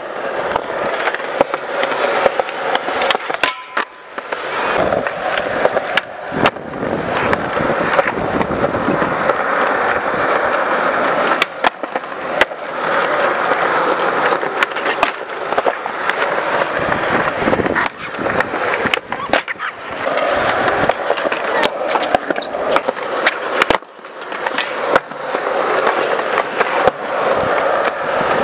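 Skateboard wheels rolling on concrete: a steady rumbling roar, broken here and there by sharp clacks of boards hitting the ground.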